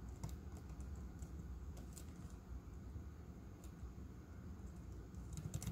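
A few faint, scattered clicks from the Dell Inspiron 13 5378 laptop's keyboard over a low steady hum.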